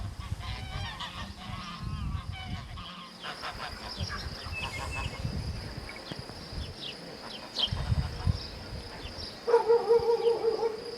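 Farmyard bird calls, busiest in the first few seconds and sparser after. Near the end a steady held call begins.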